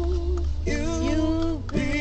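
Music with a singing voice holding long, wavering notes.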